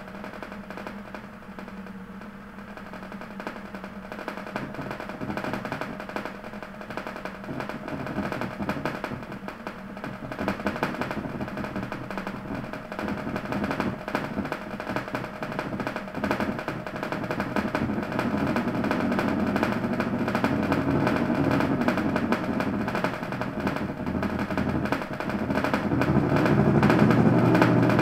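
Music with held droning notes under a fast, dense percussive rattle, growing steadily louder.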